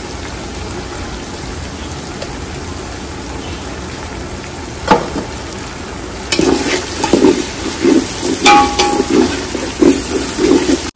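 Fried onions and ground spices sizzling steadily in hot oil in a large aluminium pot. From about six seconds in, a slotted metal spoon stirs and scrapes round the pot in quick uneven strokes, with a brief metallic clink.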